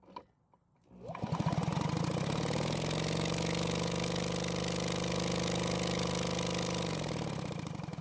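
Drill spinning over the RedMax backpack blower's engine for a spark test on a new spark plug, the engine not firing. The motor spins up about a second in, holds a steady whine, then slows down near the end.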